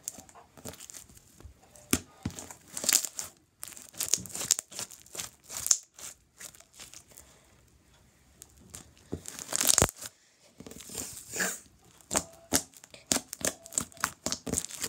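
Sticky purple slime being stretched, squeezed and pulled apart by hand, giving an irregular run of crackles, pops and tearing sounds with a few louder snaps.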